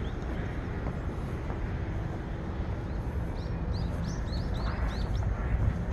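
Steady low outdoor rumble, with a quick run of about ten short, high, rising bird chirps a little past halfway.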